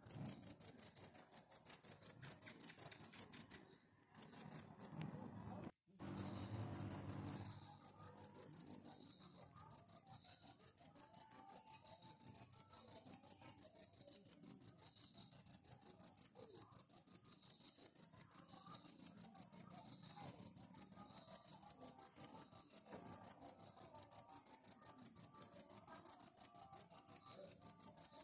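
A cricket chirping in a fast, even, high-pitched pulse, broken briefly about four and six seconds in.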